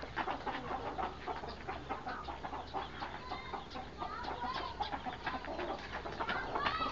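Domestic chickens clucking, with many short calls scattered throughout and a couple of longer, bending calls about three seconds in and near the end.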